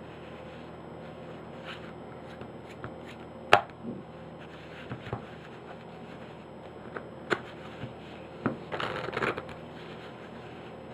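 A deck of playing cards being cut and handled on a cloth close-up mat during false-cut practice: a few sharp snaps of card packets, the loudest about three and a half seconds in, and a short rustle of cards about nine seconds in.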